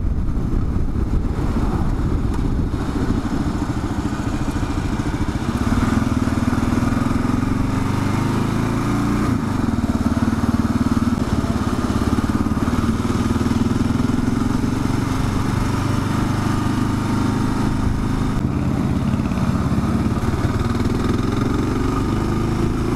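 2022 Kawasaki KLR 650's single-cylinder engine running steadily while the bike is ridden. The engine note rises about five seconds in and dips briefly near nine seconds.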